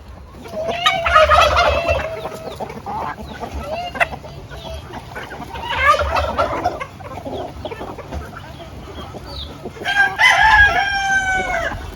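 Rooster crowing three times, each crow a long drawn-out call about four to five seconds apart.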